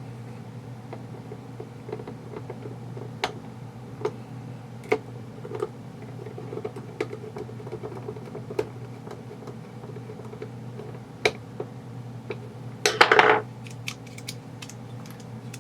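Scattered clicks and taps of small parts being handled and fitted while an airsoft rifle is reassembled by hand, with a short, loud rattle about thirteen seconds in. A steady low hum runs underneath.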